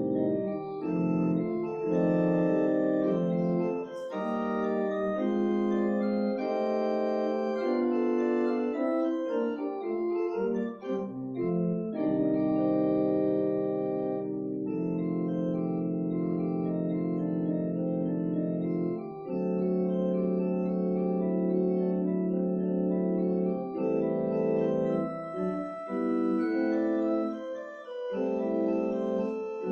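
Church organ playing slow, sustained chords, the notes held for a second or more before changing, with short breaks between phrases.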